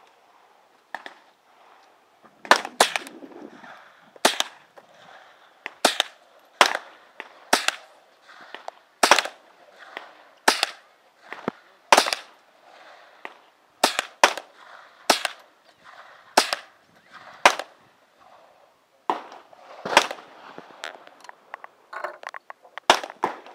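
Savage Model 64 FXP .22 LR semi-automatic rifle firing a steady string of single shots, roughly one a second, with one longer pause about three quarters of the way through.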